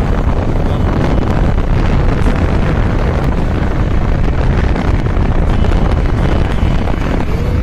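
Steady wind buffeting the microphone on a moving scooter: a loud rush, heaviest in the low end.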